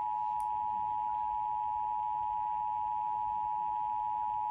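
Emergency Alert System attention signal: a steady two-tone alert tone, held without a break, announcing an emergency alert broadcast.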